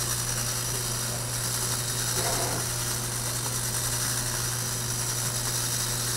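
Clockwork spring motor of a vintage tin wind-up toy monkey running after being wound, its gears turning with a steady mechanical whir as the toy lifts its book and cup.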